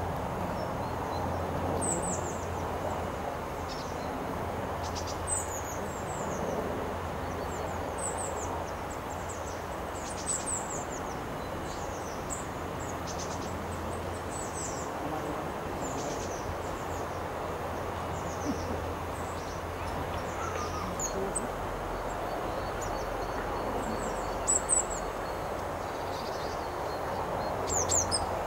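Small songbirds giving short, high, thin call notes every second or two, with a few louder calls near the end, over a steady low background hum.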